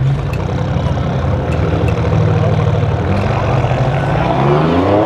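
Alfa Romeo Giulia Quadrifoglio's 2.9 L twin-turbo V6 and an Audi estate's engine idling side by side on a drag-strip start line, with the engine note climbing in pitch near the end as the revs rise for the launch.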